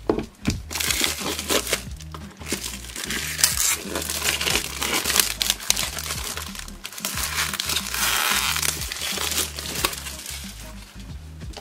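Clear plastic shrink wrap crinkling in irregular bursts as it is pulled and crumpled off a cardboard box, over soft background music with a steady repeating bass line.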